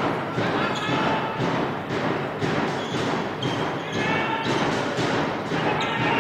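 Sports hall sound during a handball match: regular thuds about twice a second, heard over voices echoing in the hall.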